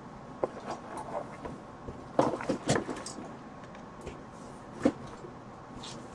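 Hands rummaging through a cardboard box of tangled wires: scattered rustles and light clicks of wire and plastic connectors, a run of louder knocks about two seconds in and one sharper knock near five seconds.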